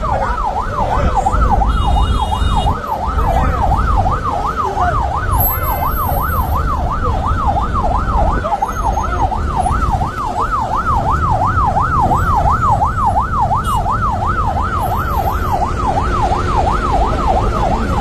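Siren yelping without a break, its pitch sweeping rapidly up and down about two to three times a second, over a heavy low rumble.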